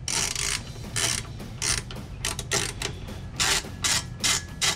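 Hand socket ratchet clicking in short repeated strokes, about two a second, as it runs bolts into the truck frame's threaded holes for a running-board bracket. The bolts are turning in easily, with not a whole lot of resistance.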